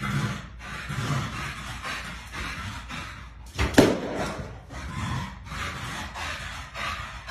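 Rhythmic rasping from a dog at play, about two strokes a second, with one loud knock a little under four seconds in.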